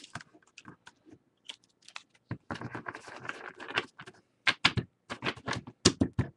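Baseball trading cards being handled: light clicks and rustling, then a quick run of sharper taps and clicks about four and a half seconds in, as the cards are stacked and squared.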